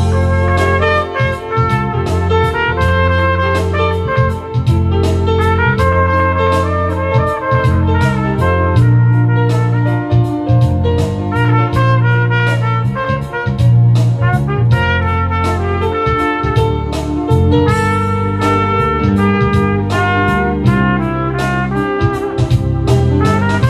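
Trumpet playing a song melody over a backing track with bass and a steady drum beat.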